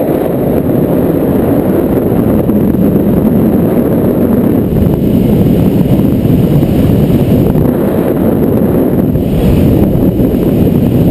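Airflow from hang glider flight buffeting a helmet-mounted GoPro Hero2's microphone: a loud, steady low rush of wind noise.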